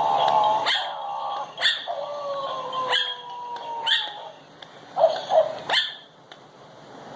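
Ten-week-old Chihuahua puppy yapping: a series of short, high, sharp barks a second or so apart.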